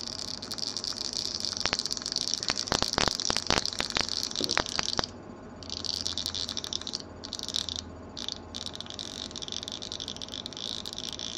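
Gravity-feed airbrush, just loaded with thinner and a few drops of paint, hissing in bursts of air as the trigger is opened and closed. A quick run of sharp clicks and rattles comes in the first half.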